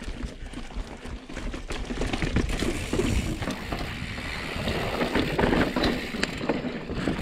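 Mountain bike descending fast over slab rock: tyres rolling and the bike rattling, with many small knocks and clicks over a steady rushing noise.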